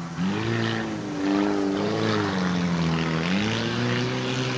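Car engines racing on a dirt track, revving hard and easing off again and again, so the pitch climbs and drops every second or two.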